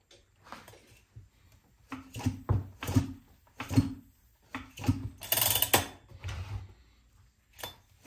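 Short mechanical ratcheting and clicking strokes, roughly one every half to one second, with a louder rattle about five seconds in, from hand work on a Jonsered 2077 chainsaw's engine as the spark plug goes in and the compression is checked.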